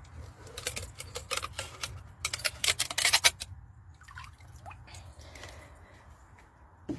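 Ice frozen in a plastic water bowl cracking and crackling as a hand breaks it and pries the sheet loose, in quick clicks that come thickest in the first three and a half seconds, then thin out to faint crackles.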